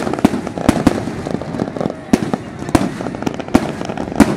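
Aerial fireworks bursting: a string of sharp bangs, about eight in four seconds at an irregular pace, over a continuous noisy din.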